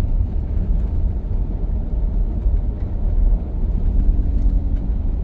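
Steady low rumble of a car's engine and tyres on a snow-covered road, heard from inside the cabin.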